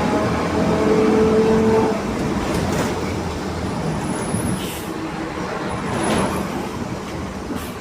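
Mercedes-Benz LO 916 bus on the move, with a steady growling whine from its differential for about the first two seconds. The whine then fades, leaving rougher running and road noise with a couple of brief hisses.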